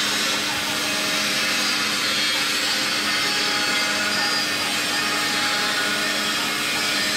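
Small 5-axis CNC router's spindle running steadily while carving a foam block into a head: a steady whirring hiss with a low hum underneath.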